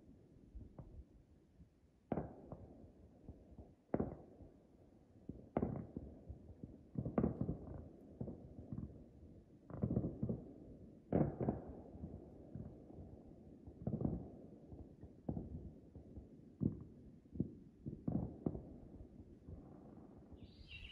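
Distant fireworks going off, a low boom every second or two, each dying away in a rumbling echo.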